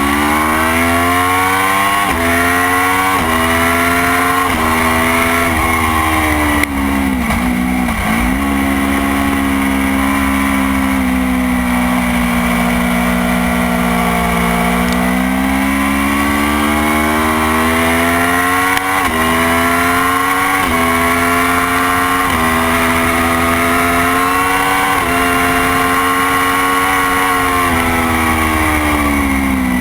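Motorcycle engine at high revs around a race track: it climbs in pitch through the gears with upshifts about once a second, drops as it slows about seven seconds in, holds a steady note for several seconds, then accelerates through another run of quick upshifts and falls again near the end.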